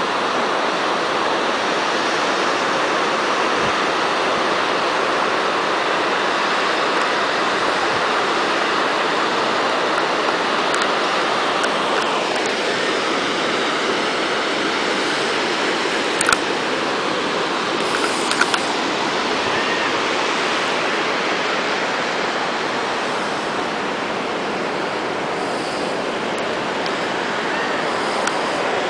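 Steady roar of ocean surf breaking along the shore below, with a few short clicks a little past halfway.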